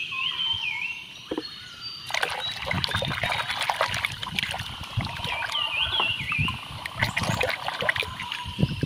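Hand scrubbing and sloshing plastic toys in a tub of soapy water: a busy run of small splashes and drips, starting about two seconds in after a quieter moment.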